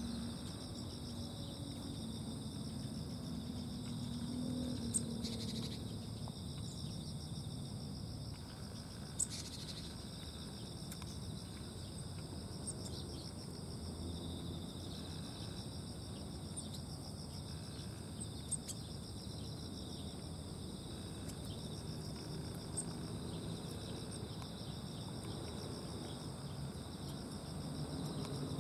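Steady chorus of insects chirring at several high pitches, with a few short clicks now and then.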